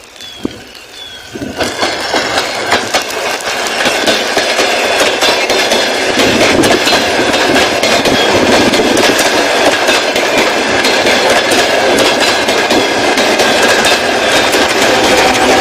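Passenger train running on the rails, its wheels clattering rapidly over the rail joints. The noise starts about a second and a half in, swells over the next few seconds, then holds steady and loud.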